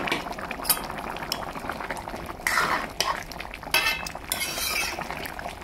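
Pork curry bubbling steadily as it simmers in a metal pan; from about halfway in, a metal ladle stirs it, scraping and clinking against the side of the pan a few times.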